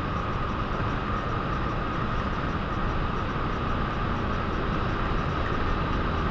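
Steady road and tyre noise of a car driving at motorway speed, heard from inside the cabin, with a steady whine running through it.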